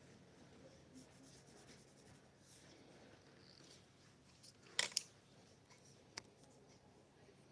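Faint scratching of a coloured pencil on paper, then two sharp clicks close together about five seconds in and a smaller one a second later.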